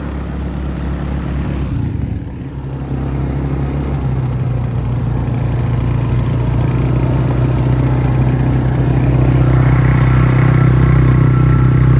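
ATV engine running while being ridden. It dips briefly about two seconds in, then grows steadily louder.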